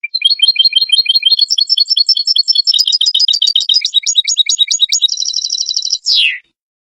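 European goldfinch singing a fast, twittering run of high notes, turning into a buzzy trill and ending in a quick falling note. The song starts and stops suddenly.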